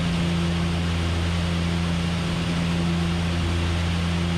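Steady drone of a DHC-6 Twin Otter's twin PT6A turboprop engines and propellers in cruise descent: a constant low hum with a fainter tone above it that comes and goes, over even rushing noise.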